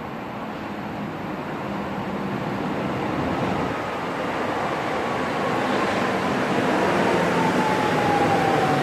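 Stuttgart Stadtbahn light-rail train pulling into the stop, growing louder, with a whine that slowly falls in pitch over the second half as it slows.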